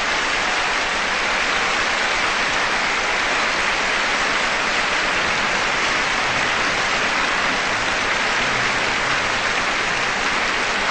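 A steady, even hiss of noise with no rhythm or separate events.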